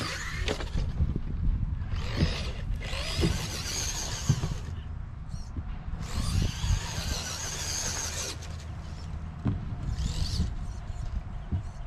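Electric RC car's brushless motor and drivetrain whining in bursts as the throttle is worked, four high whines that rise and fall in pitch, over a low rumble.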